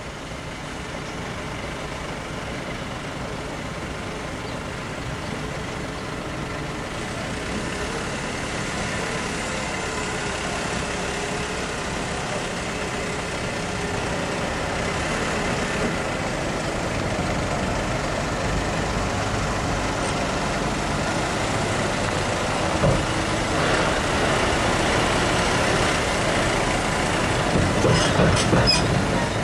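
Diesel engine of a MAN TGA 18.530 tractor unit with a tipper trailer, running and growing gradually louder. A few short sharp knocks come near the end.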